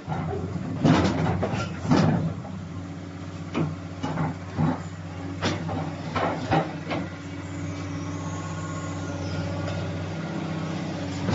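CAT 330 excavator's diesel engine running steadily, with a series of short, sharp knocks and clanks over the first seven seconds or so.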